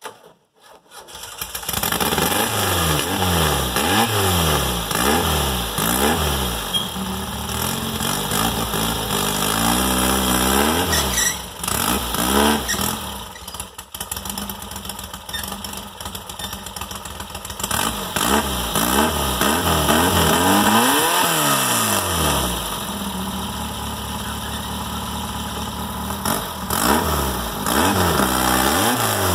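Volkswagen-powered rail buggy's engine revving up and down over and over as it works its way up a steep, rutted hill climb. The engine fades in within the first second, and the revs drop briefly about halfway through.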